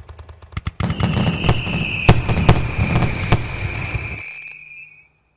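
Fireworks going off: a rapid crackle, then a dense barrage of bangs over a low rumble, with a steady high whistle held about four seconds that dips slightly in pitch as it fades. The whole barrage dies away about five seconds in.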